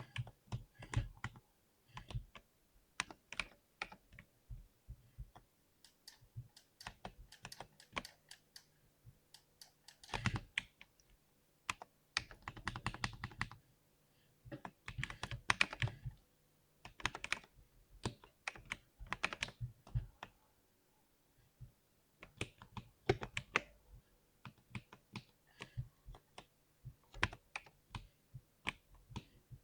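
Typing on a 60% keyboard: key presses clicking in irregular bursts, with fast dense runs of keystrokes about a third and halfway through and short pauses between.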